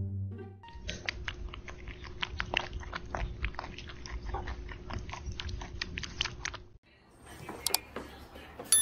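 A pet chewing and crunching food close to the microphone: a dense run of quick crunches over a faint steady hum, breaking off about seven seconds in.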